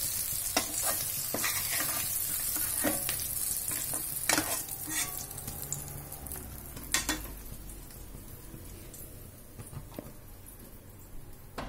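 Oil sizzling in a kadai around fried stuffed bitter gourds, with several sharp clicks and scrapes of a metal spatula lifting them out against the pan and a plastic bowl. The sizzle fades away over the second half.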